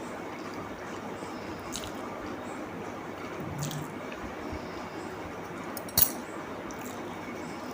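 Person eating, with wet mouth sounds and a few faint clicks over a steady hiss, and one sharp click about six seconds in.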